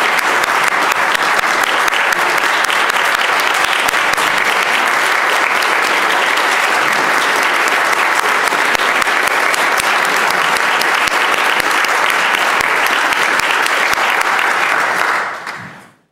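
Sustained applause from a chamber full of legislators clapping, a dense, even patter of many hands that dies away quickly near the end.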